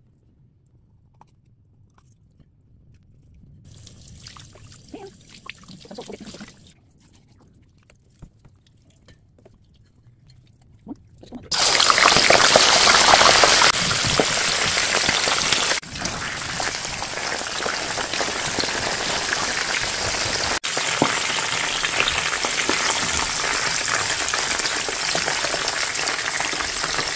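Whole mackerel frying in hot oil: a loud, steady sizzle that starts suddenly about eleven seconds in, with two brief dips. Before it, faint water trickling and splashing as the fish is rinsed in a steel bowl in the sink.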